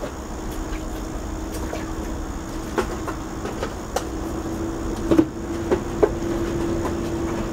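Hermetic refrigerator compressor running on the bench with a steady hum, pumping air because it holds no refrigerant. A few scattered light clicks or knocks sound over it.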